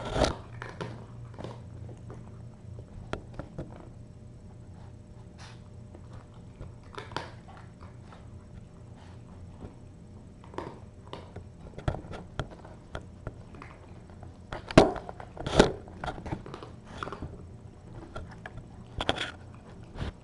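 Cats playing around a knocked-over camera: scattered light taps, knocks and rustles as they move about and bump it, with a few louder thuds about two-thirds of the way through, over a steady low hum.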